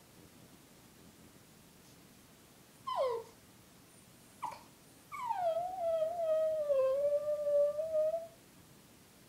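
Brussels Griffon howling: two short cries that fall sharply in pitch, about three and four and a half seconds in, then one long howl that starts high, slides down, wavers and holds for about three seconds.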